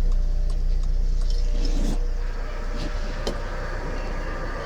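VW Golf running at low speed, a steady low rumble, with a light regular ticking of about two to three a second through the first couple of seconds and a few sharper clicks later on.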